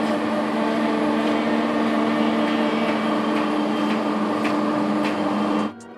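Gondola ropeway station's drive machinery running, a steady mechanical hum as the bullwheel turns and the cabins come round; it cuts off suddenly near the end.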